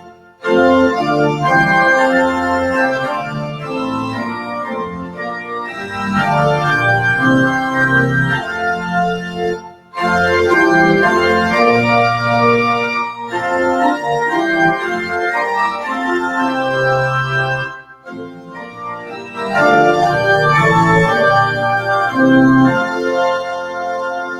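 Church organ playing a slow piece of held chords, in phrases broken by short pauses about ten and about eighteen seconds in.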